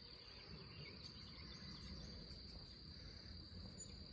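Faint, steady chorus of insects, a continuous high-pitched buzz, over a low outdoor background rumble.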